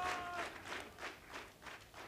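Crowd clapping in time, about three claps a second, dying steadily away. A held shout from the crowd ends about half a second in.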